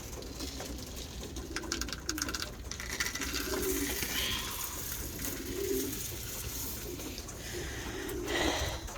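Homing pigeons cooing in a loft, several low coos at intervals, with a brief patter of clicks about two seconds in.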